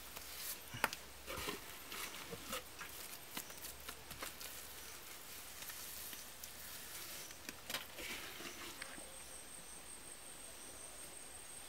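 Hands scooping and working wet mud, with scattered light pats, slaps and clicks. From about nine seconds in, an insect's steady high-pitched trill takes over.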